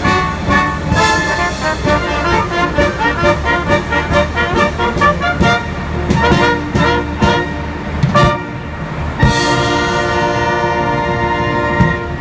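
Wind band of clarinets, flute and brass playing a lively piece over a regular percussive beat. About nine seconds in, a loud accent opens a long held chord that ends the piece.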